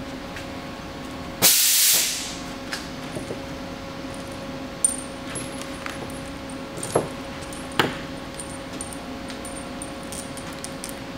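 A few sharp metal clicks of steel bolts being handled and hand-started into a transmission adapter plate, over a steady hum. About one and a half seconds in there is a short, loud burst of rushing noise.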